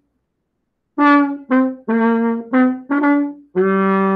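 Trombone played through a homemade cone-shaped practice mute in its bell. About a second in it plays a short phrase of six separate notes, and the last one is the lowest and held for about a second.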